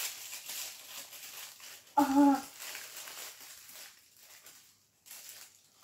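Plastic wrapper crinkling and rustling as a small toy accessory is unwrapped by hand, with a short child's vocal sound about two seconds in; the crinkling then grows fainter.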